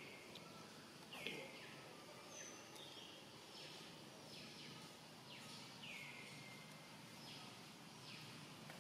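Faint forest ambience with small wild creatures calling over and over: short high chirps that each slide down and settle on a steady pitch, about one a second, some overlapping. A brief soft knock sounds about a second in.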